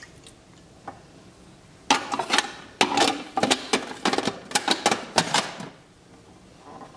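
Hard plastic parts of a Braun food processor clicking and clattering as the lid and feed-tube pusher are fitted onto the bowl: a quick run of knocks and snaps starting about two seconds in and lasting some three and a half seconds.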